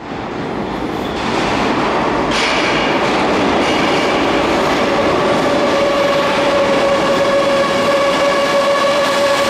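An R127 subway garbage work train approaching a station platform, its rumble building louder over the first couple of seconds. From about two seconds in, a steady high tone joins it and grows stronger as the train draws near.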